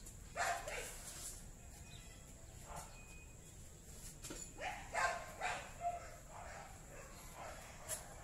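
A dog barking, short single barks repeated irregularly, bunched closest together in the middle of the stretch.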